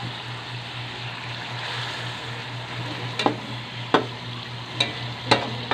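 Pork pieces in a soy and pineapple-juice sauce sizzling in a metal wok as the juice cooks down. From about three seconds in, a metal spatula knocks sharply against the wok about five times while stirring.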